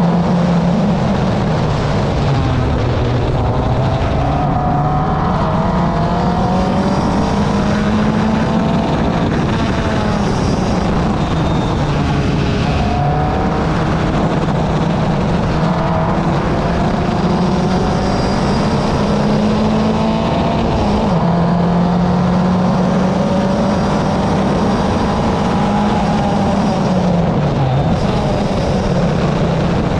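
Audi S4's engine running on the move, its note rising and falling gently several times as speed changes, over steady road noise.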